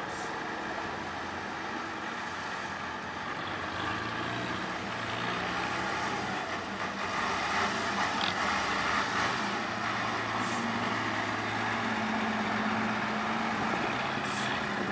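Diesel engine of a 6x6 trial truck running steadily and working harder, growing louder about halfway through, with a few brief hisses.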